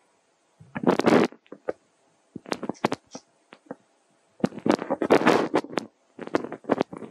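Baby macaque eating soft fruit up close: crackly chewing and rustling in several short bursts with quiet gaps between them.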